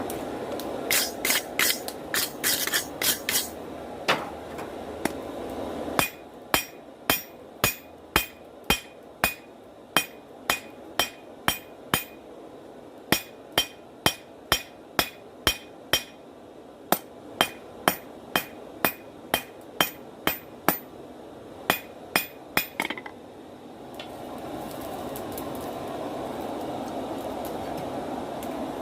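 Hand hammer striking hot steel on an anvil while drawing out a knife blade: a quick run of blows at first, then steady blows about two a second, each with a bright ring. A steady rushing noise sits under the first seconds and returns near the end.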